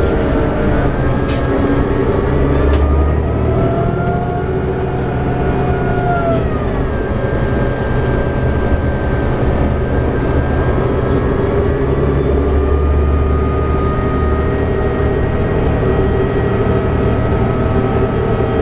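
Cabin sound of a 2011 New Flyer D60LFR articulated diesel bus cruising at freeway speed: its Cummins ISL9 diesel and Allison B500R transmission running under a steady low road and tyre rumble. A whine rides over it and drops in pitch about seven seconds in.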